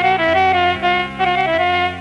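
Instrumental interlude of an Iraqi song with no singing: a lead instrument plays a quick run of changing notes over a held bass line, fading off near the end.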